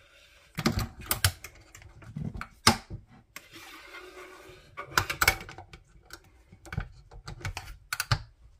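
Stay or Go slow cooker's glass lid and wire locking clips being fitted: sharp clicks and light metallic clacks in clusters, about a second in, near three seconds, around five seconds and again near the end.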